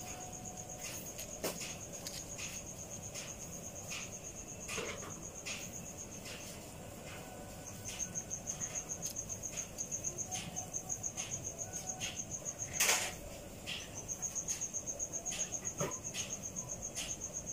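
Crickets chirring: a steady, high-pitched pulsing trill that breaks off twice. Scattered soft clicks and one brief louder rustle about three-quarters of the way through.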